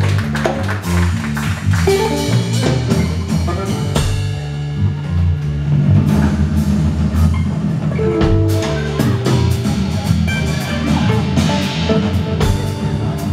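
Live unplugged band playing an instrumental passage: strummed and picked acoustic guitars over a prominent electric bass line, with percussion beating time.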